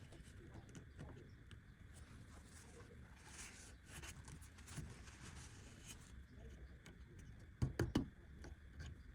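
Faint scratching and handling sounds on wood, with a quick cluster of sharp knocks near the end.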